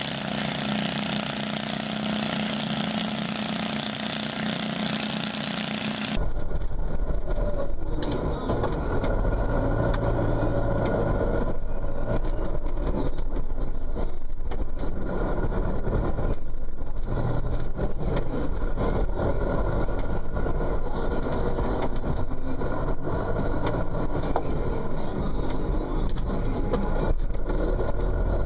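Small garden tractor engine running hard as it pulls a sled. After about six seconds this cuts suddenly to a larger farm tractor's engine heard from inside its cab, a steady low drone.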